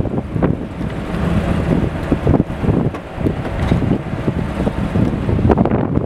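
Strong, gusty wind buffeting the microphone with a loud, irregular rumble.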